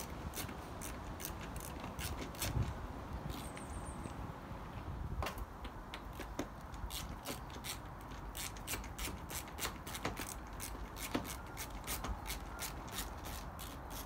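Ratcheting stubby screwdriver turning a screw in a uPVC door hinge, its ratchet clicking in quick, uneven runs of sharp clicks.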